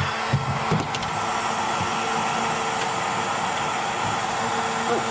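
Kobalt electric heat gun blowing steadily, its fan and motor giving a constant rushing noise with a steady hum, used to melt ice off frosted freezer coils. A couple of short low knocks sound in the first second.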